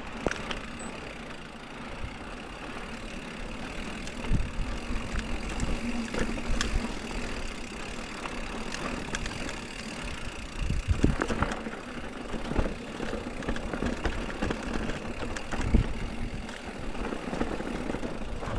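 Mountain bike rolling over rough trail: a steady rumble and rattle of tyres and frame, broken by scattered knocks over bumps, three of them hard.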